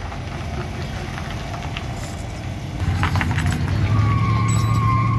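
Dodge van engine idling, then revving up about three seconds in. Near the end a steady high-pitched squeal sets in as the rear tyres start to spin on concrete at the start of a burnout.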